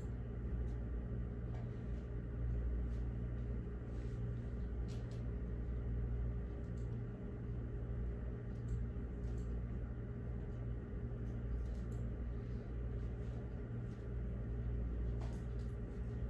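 Steady low hum of a quiet classroom, with faint scattered small clicks and taps.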